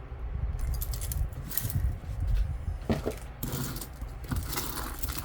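Costume jewelry being handled close to the microphone: metal pieces clinking and scraping, with low handling bumps.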